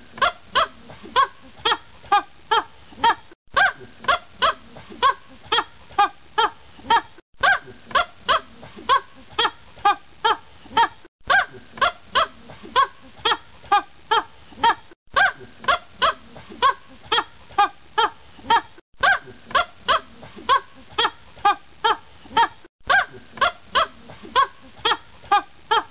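Rapid honk-like animal calls, about three a second, from one short recording looped over and over, with a brief cut to silence every four seconds or so.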